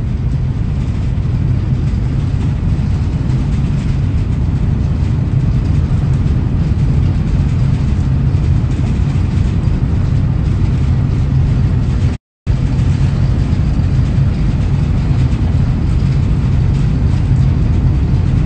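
Steady low rumble of a moving train, heard from inside the passenger carriage. It cuts out completely for a moment about twelve seconds in.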